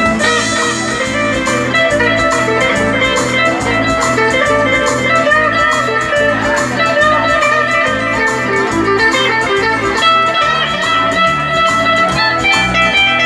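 Band music led by guitar over a bass line and a steady, even beat.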